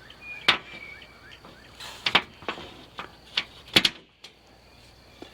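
Knife cutting through a garden hose: a series of sharp, irregular snaps and clicks as the blade works through it, loudest about two seconds in and again near four seconds.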